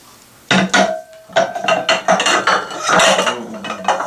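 Ceramic dishes clinking and knocking together as they are washed by hand in a bathtub, a quick run of clatters with a short ringing note about a second in.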